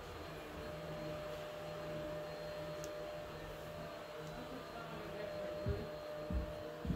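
Room tone with a steady electrical hum. A few soft low thumps come near the end.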